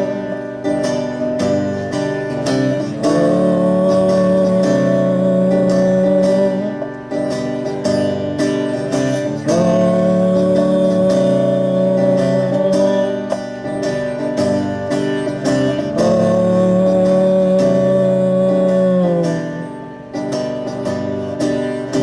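Live guitar instrumental passage without vocals: long held lead notes that slide up into pitch three times, over steady strummed chords, easing off near the end.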